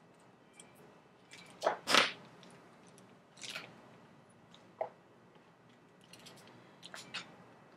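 Rustling and scraping as a bike saddle and its stretch-fabric cover are handled and tucked on a plastic bubble mailer, in a few short bursts. The loudest are two close together about two seconds in.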